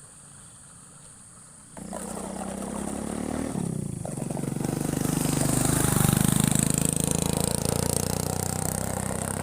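An engine starts abruptly about two seconds in and revs up, loudest near the middle, then keeps running steadily.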